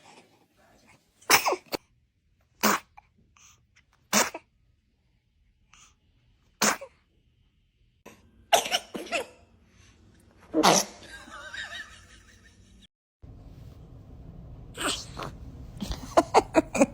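Baby sneezing repeatedly: about eight short, sudden sneezes, mostly one at a time a second or two apart, with a quicker cluster near the end.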